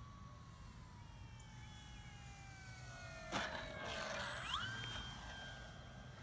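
Electric motor and propeller of a Flightline F8F Bearcat 1200 mm RC warbird on a 4S battery, whining as it makes a low pass over the runway. The pitch sinks slowly on the throttled-back approach. There is a short burst of noise about three seconds in, then the whine rises quickly to a higher steady pitch as the throttle is opened to climb away.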